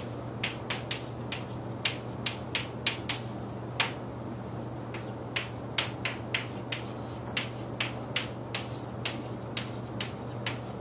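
Chalk tapping on a blackboard as words are handwritten: a run of sharp, irregular taps, about two or three a second, over a steady low hum.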